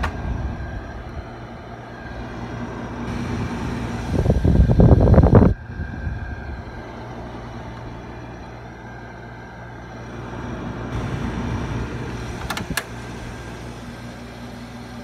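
Hampton Bay (LG-built) 12,000 BTU window air conditioner running with a steady hum. About four seconds in a louder noisy stretch comes up and cuts off suddenly a second and a half later, and a sharp click comes near the end.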